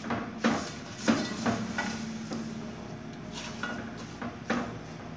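Spatula stirring raw mango slices and sugar in a metal pot, with irregular scrapes and knocks against the pot's sides.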